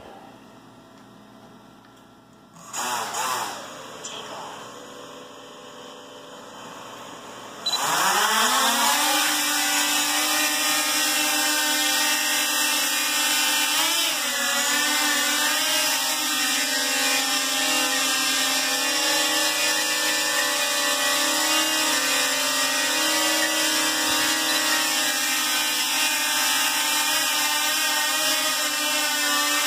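DJI Mavic Pro quadcopter, fitted with propeller cages, whose four motors spin up sharply about eight seconds in, with a rising whine of many tones. It then hovers with a loud, steady, high whine. The motors are running very hard, which the owner puts down to the cage kit's smaller props spinning too fast, and it doesn't sound right to him.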